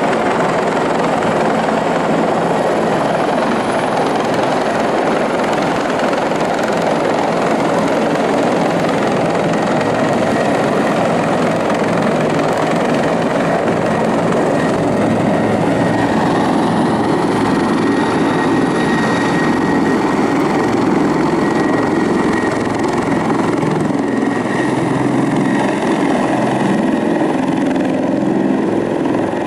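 Helicopter overhead, its rotor and engine giving a steady noise, with a thin high whine rising out of it about halfway through.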